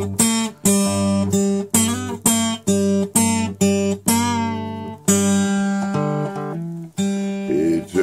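Acoustic guitar strummed in quick, even strokes, about three a second, then a chord left to ring for about a second and a half before a few more strokes.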